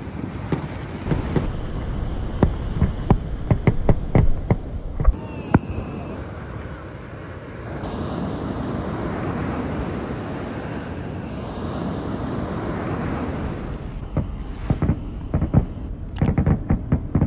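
Distant fireworks bursting, a quick run of sharp pops and bangs for the first five seconds. After a lull comes a steady rush of ocean surf and wind for about six seconds, then a cluster of sharp clicks and pops near the end.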